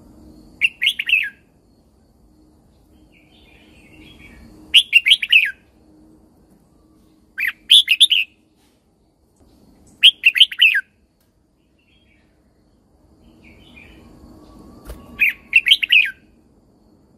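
Red-whiskered bulbul singing: five short, rich warbling phrases of about a second each, spaced a few seconds apart, over a faint low hum.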